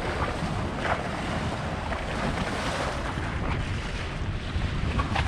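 Wind buffeting the microphone over a choppy sea, with waves sloshing and splashing against a small boat; a couple of short splashes stand out about a second in and near the end.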